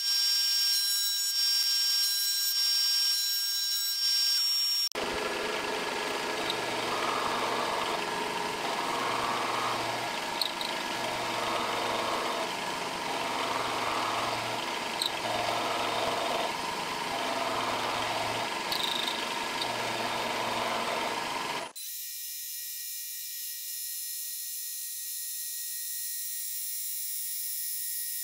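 Power tools cutting a metal plate. First comes a steady, high saw whine. From about five seconds in, a vertical milling machine's end mill cuts the plate, its sound swelling and fading about every two seconds. A steady, high whine from the mill takes over near the end.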